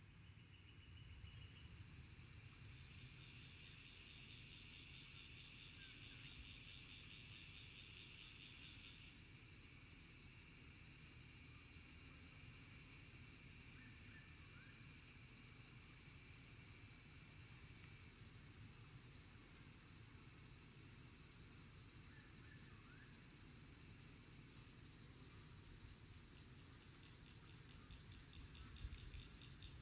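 Faint chorus of insects trilling steadily at a high pitch. A second, lower pulsing trill joins it and fades out partway through.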